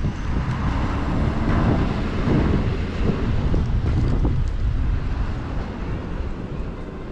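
Wind rumbling on the microphone over the noise of passing street traffic, easing off toward the end.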